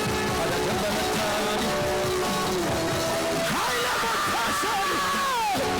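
Live worship band music with sustained chords and guitar. A long held note comes in about halfway through and slides down near the end.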